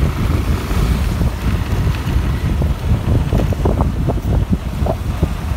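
Wind buffeting the microphone of a moving motorcycle, with the motorcycle's engine running underneath as it rides along.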